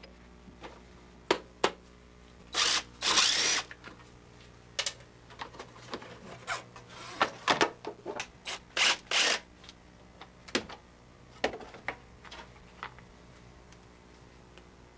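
Mechanic's tool work on a lawn mower: a scattered series of sharp clicks and knocks, with a few short hissing bursts.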